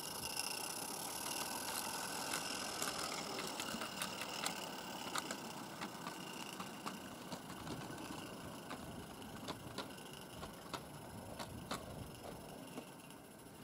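Live-steam G scale model locomotive running on garden track: a steady steam hiss with irregular sharp clicks from the wheels and rail joints, growing fainter as the engine runs away.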